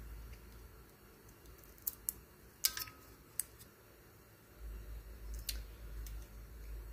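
A few faint clicks and light taps of a small metal part being handled, one a little louder with a short metallic ring. A low rumble of handling noise on the camera comes in toward the end.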